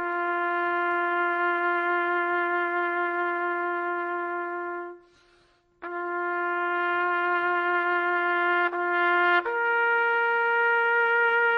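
Solo trumpet playing a slow melody of long held notes. One note is held for about five seconds, then comes a short breath of silence. The same note sounds again before the melody steps up to a higher held note near the end.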